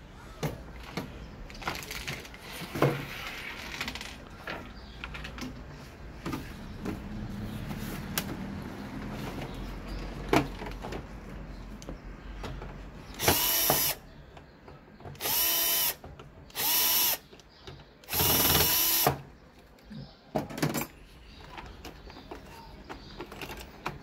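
Electric drill-driver run in four short bursts of about a second each in the second half, used while parts are being taken off. Small clicks and knocks of tools and parts being handled come before it.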